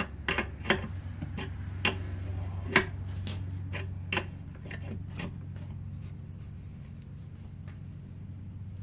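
Open-end wrench and pliers ticking and clinking against a steel pipe cap and nipple held in a bench vise as the cap is tightened: a string of irregular metal ticks, the loudest about three seconds in, thinning out after about five seconds. A steady low hum runs underneath.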